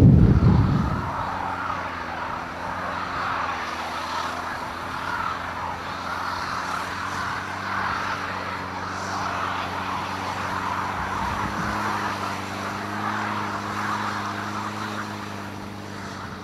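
A motor vehicle's engine running steadily, a low even hum with a rushing noise over it; wind buffeting the microphone dies away about a second in.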